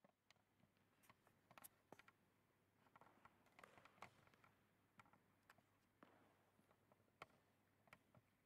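Near silence: faint room tone with scattered faint clicks and soft rustles.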